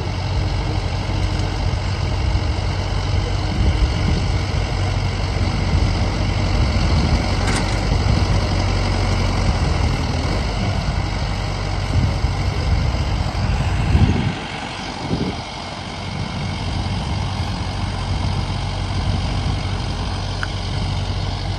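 Farm tractor's engine running steadily as its front-end loader sets a round hay bale onto a trailer, then quieter from about fourteen seconds in.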